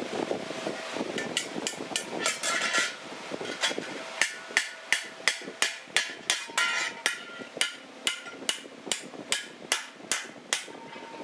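Small hand hammer striking steel on a steel hoe blade: a steady run of metal-on-metal blows, about two to three a second, each ringing briefly. The blows start about a second in and stop shortly before the end.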